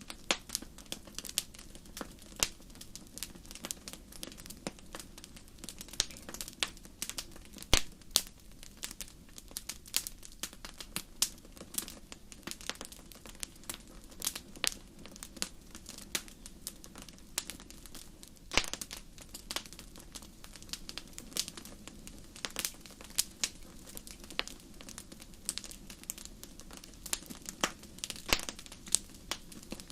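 Fireplace fire crackling: a steady stream of sharp snaps and pops, several a second, over a low, even rustle of the flames, with a couple of louder pops.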